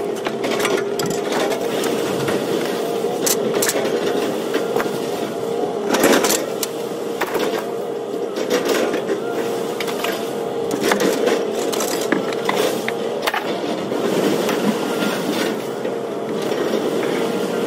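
Scrap metal and junk furniture being shifted and dropped on a trailer while unloading: irregular clanks and knocks, one louder bang about six seconds in, over a steady mechanical drone from machinery running.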